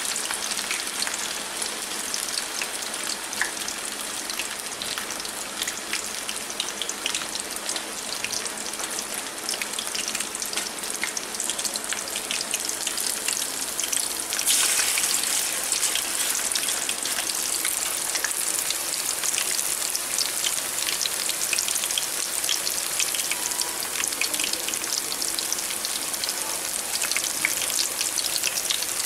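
Chapli kabab patties shallow-frying in hot oil in a small pan: a steady sizzle with fine spitting crackles. About halfway through, another raw patty is laid into the oil and the sizzle turns louder.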